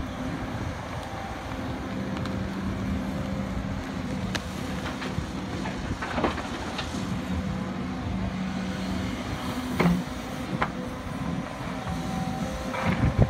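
Hidromek HMK230 H4 crawler excavator's diesel engine and hydraulics working through a dig, swing and dump cycle, the engine note shifting as the load changes. Rocks knock and clatter a few times as the bucket dumps into the truck bed, and louder clattering comes near the end as the bucket digs back into the rocky ground.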